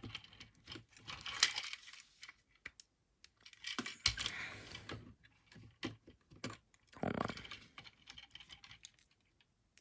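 Small plastic toy parts clicking and rattling as they are handled and pushed into an action figure. The noise comes in three bursts, about one, four and seven seconds in, with quiet gaps between them.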